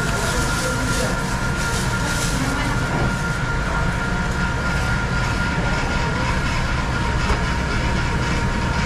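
A steady machine rumble with two constant whines, its source unseen. During the first three seconds a plastic bag crinkles as it is handled.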